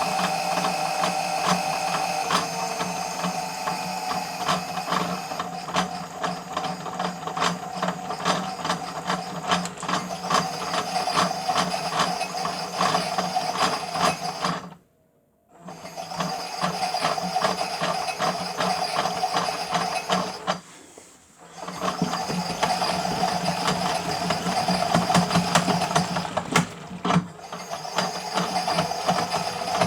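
Toy Miele W1 washing machine's small electric motor and plastic gears whirring and clicking as it turns the drum. It stops for about a second midway and dips briefly twice more, as the drum pauses between turns.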